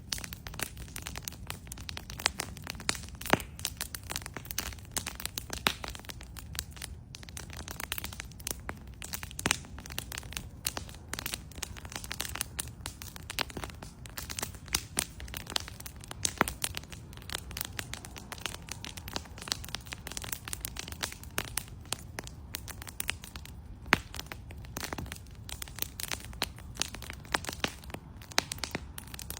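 Bonfire crackling and popping: dense, irregular snaps and cracks of burning wood, with a steady low rumble beneath.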